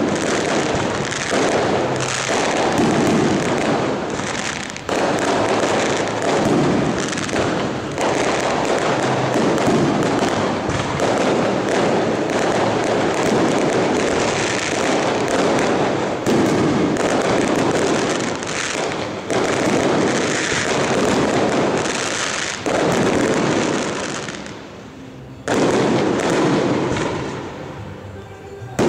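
Aerial firework shells bursting in a dense, near-continuous barrage of bangs. The barrage briefly dies down about five seconds before the end, then resumes with another run of bangs.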